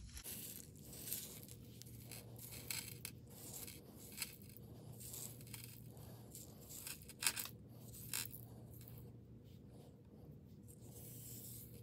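Loose beads and small jewelry pieces clicking and clinking as they are picked through by hand, with light scraping and rustling between the clicks; a couple of sharper clicks come about seven and eight seconds in.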